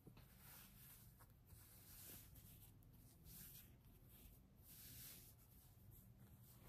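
Near silence with faint, soft rustles of quilt fabric pieces being handled and smoothed flat on a cutting mat, a few brief brushes spread through.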